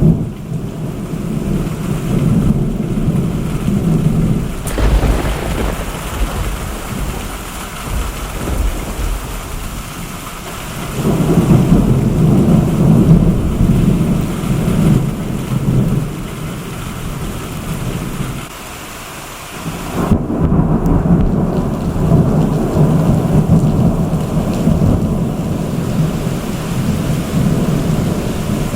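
Summer thunderstorm: rolling thunder in long low rumbles over steady rain. One sharp crack comes about five seconds in, and a loud roll breaks out suddenly about two-thirds of the way through.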